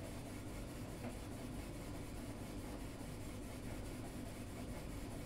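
Steady low hum and hiss of room tone, with no distinct events.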